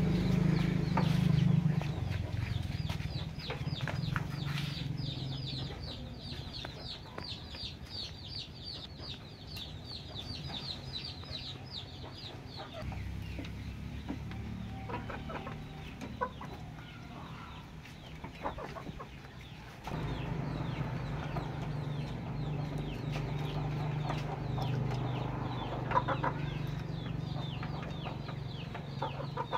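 Chickens clucking, over fast repeated high chirps and a steady low hum.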